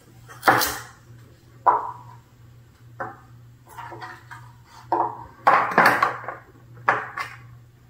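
A kitchen knife chopping through raw carrots onto a cutting board: about eight sharp, irregularly spaced chops, each with a brief ring. A steady low hum runs underneath.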